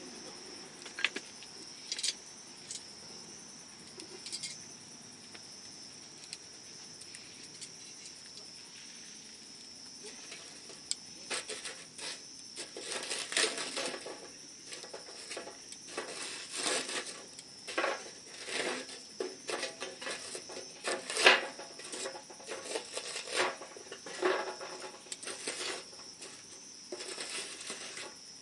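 Wood campfire crackling and popping, sparsely at first and then busily from about eleven seconds in, with one loud pop near the twenty-one-second mark. A steady high insect trill runs underneath.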